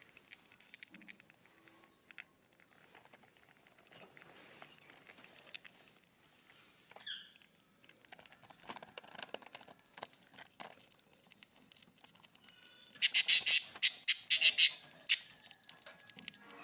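Budgies at the nest: faint scratching and shuffling with scattered clicks, and a short chirp about seven seconds in. Near the end comes a loud two-second burst of rapid, high-pitched chittering as the chicks are fed.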